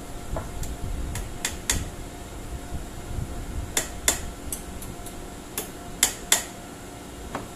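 A hammer lightly tapping nails into a pallet-wood shoe-rack frame: about a dozen sharp, irregular taps in small clusters, over a steady low rumble.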